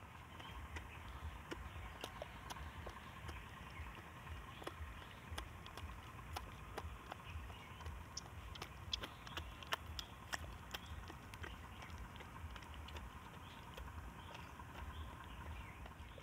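A gray langur chewing food close to the microphone: irregular sharp clicks and crunches, thickest about halfway through, over a low steady rumble.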